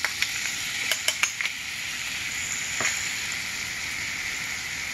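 Garlic, jalapeño and Thai chilies sizzling in melted butter and freshly added soy sauce in a frying pan, a steady sizzle with a few light ticks in the first second and a half.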